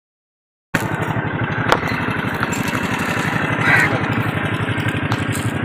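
A small engine running steadily with an even low throb, starting abruptly under a second in. A crow caws once about halfway through.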